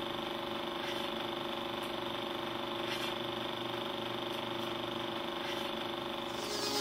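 Steady hum with several held tones under a faint hiss, growing louder with a rush of high noise near the end.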